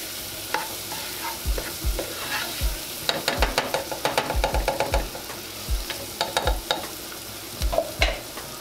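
Sliced onions and minced garlic sizzling in leftover fried-chicken grease in a metal pot, while a spoon stirs them, scraping and tapping against the pot with a quick run of clicks about three seconds in and dull knocks throughout.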